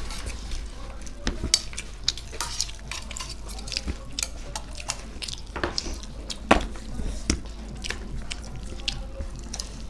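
Eating sounds: irregular clicks and clinks of food being scooped and mixed against a plate, with one sharper knock about six and a half seconds in.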